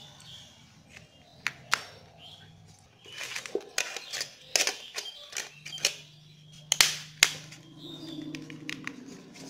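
Plastic back cover of a Fox Gama feature phone being pressed and snapped onto the body over the battery: a string of sharp clicks and rattles of plastic, with the two loudest snaps about two-thirds of the way through.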